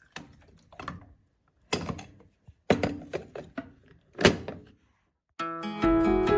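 Several separate clunks and knocks as parts of a countertop breakfast station are handled and set in place, with short silences between them. Guitar music starts near the end.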